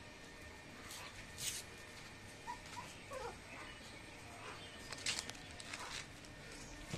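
Desi dog puppies whimpering faintly a few times, small falling squeaks about midway, between short scuffling noises as they move about and nose at each other.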